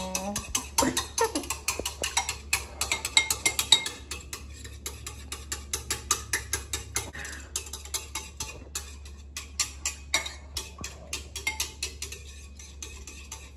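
Eggs being beaten into an egg wash with a wooden utensil in a bowl: rapid clicking of the utensil against the bowl's sides, several taps a second, thinning out near the end.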